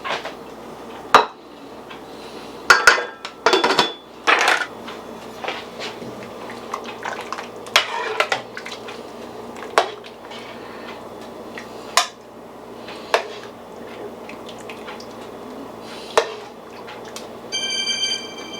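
A spoon and ladle clinking and scraping against a pot and bowl while gumbo and rice are served, in scattered irregular knocks. A short ringing clink sounds near the end.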